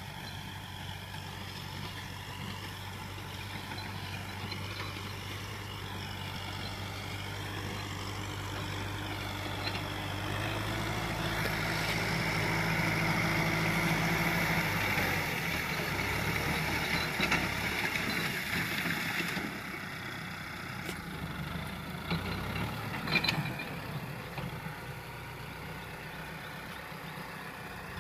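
Kubota M6040 tractor's diesel engine running steadily under load while its rear rotary tiller works dry soil. It grows louder as the tractor comes close about halfway through, then eases back, with a sharp click a few seconds before the end.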